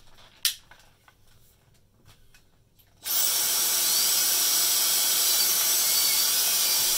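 A sharp click, then about three seconds in a Dyson DC35 handheld vacuum switches on and runs steadily with a loud rush of air through the wand and powerhead.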